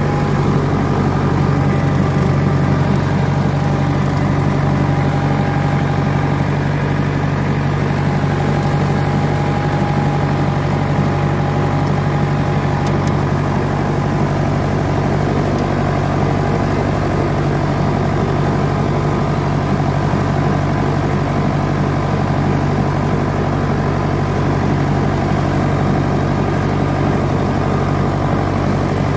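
1962 Nuffield 460 tractor's four-cylinder diesel engine running steadily under load, driving an offset topper mowing grass.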